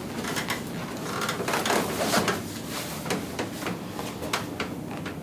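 Rustling with a series of light clicks and knocks as a person shifts and settles face down on a padded treatment table.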